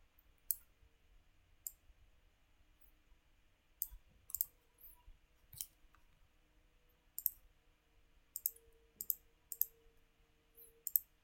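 Computer mouse button clicks: about a dozen short, sharp clicks at irregular intervals, some in quick pairs, over a faint steady hum.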